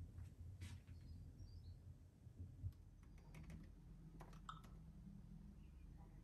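Near silence with a few faint key clicks from typing on a laptop keyboard, clustered in the second half.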